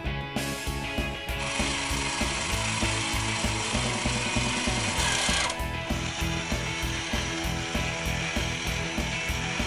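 Toy claw machine's motor and gears whirring and grinding as the claw moves under joystick control. The sound is strongest in the first half and changes about halfway through. Background music with a steady beat plays under it.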